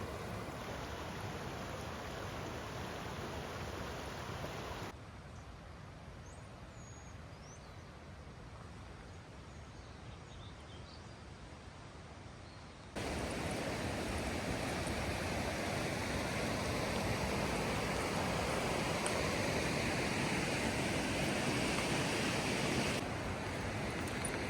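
Steady rush of a snowmelt-swollen mountain creek and its rapids, in three edited takes: moderate, then quieter from about five seconds in, then louder and fuller from about thirteen seconds in.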